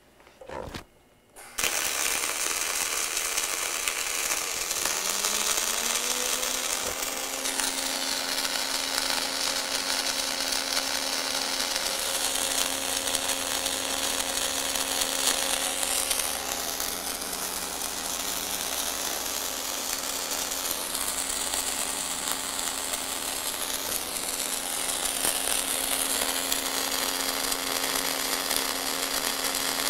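Welding arc struck about a second and a half in, then a steady arc hiss and crackle as the torch lays a weave pass on plate, swung by a K-Bug 5050 pendulum weaver on a Bug-O Mini Manipulator. About five seconds in, a motor whine rises in pitch and then holds steady under the arc noise.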